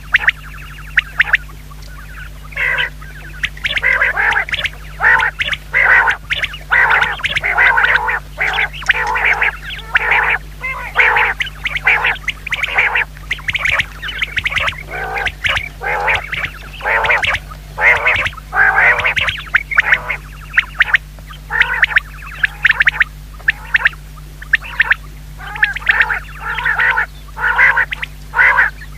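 Common quail calling over and over in quick series of short, harsh notes, with only brief pauses between the bouts.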